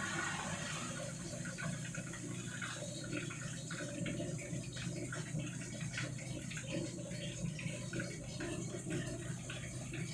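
Indesit washing machine running with water sloshing and splashing inside, over a steady low hum.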